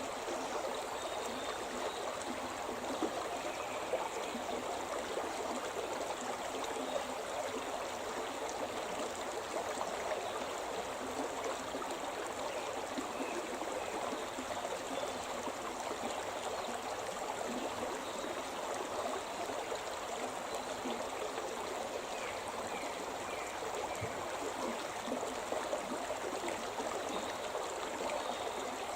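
The Shimna River flowing: a steady, unbroken rush and gurgle of moving water.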